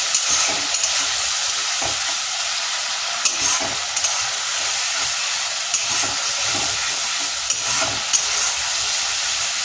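Masala paste frying in oil in a metal kadai, sizzling steadily while a wooden spatula stirs it, scraping and knocking against the pan now and then. This is the kosha stage, the spices being fried down in the oil.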